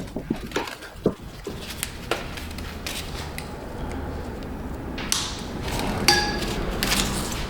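Scattered clicks and knocks of metal tools and parts being handled, with a short metallic ping about six seconds in.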